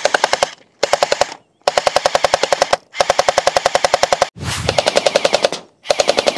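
Electric UMP 45-style gel blaster firing full-auto in about six short bursts, each a rapid clatter of about fifteen shots a second with brief pauses between the trigger pulls.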